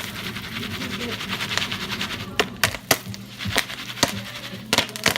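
Popcorn kernels popping in a foil pan on a stovetop. At first a dense sizzle of quick crackles, then from about halfway sharp separate pops, roughly two a second.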